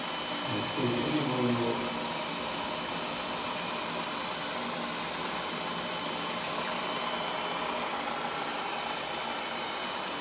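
ILIFE A11 robot vacuum running with a steady hiss from its suction fan and brushes as it drives itself back to its charging dock. A brief pitched tone rises above it about a second in.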